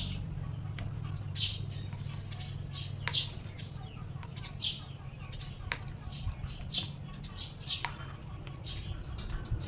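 A small male bird chirping over and over in short, high, down-slurred notes, about once or twice a second, with a sharp tap now and then. These are the sounds of a territorial male attacking its own reflection in a motorcycle's side mirror, pecking the glass and fluttering against it.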